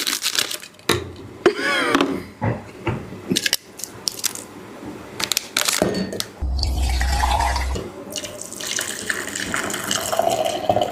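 Water running and splashing, like a tap or liquid being poured, with scattered knocks and clatter in the first few seconds and a steadier flow from about halfway in.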